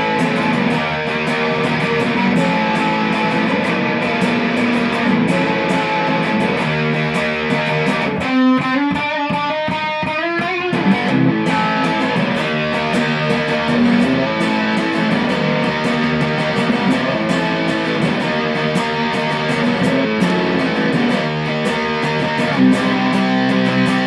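Fender Sixty-Six electric guitar played on its bridge humbucker through a Keeley Dark Side fuzz pedal: continuous fuzzed chords and sustained notes, with a stretch of wavering, bending pitch about eight seconds in.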